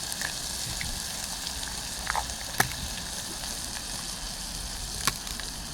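Beef and vegetables frying in a pan, a steady sizzle with a few sharp pops, the loudest about two and a half and five seconds in.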